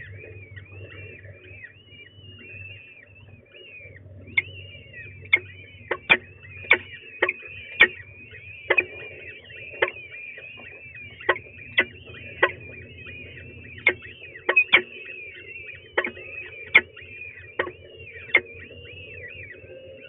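Peregrine falcon chicks begging with a nonstop stream of quick, high-pitched peeping chirps while being fed. From about four seconds in, about twenty sharp clicks stand out over the peeping, with a low hum underneath.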